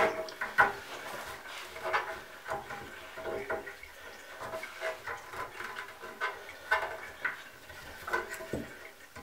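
Scattered light clicks, knocks and scrapes of a seal-removal tool and fingers working against the head of a Drayton TRV4 thermostatic radiator valve as the tool is pushed to clip onto the seal. The tool will not seat because verdigris fills the slots in the corroded seal.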